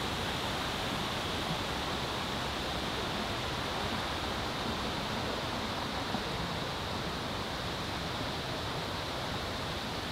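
Running water in a Japanese garden, a steady, unbroken rush.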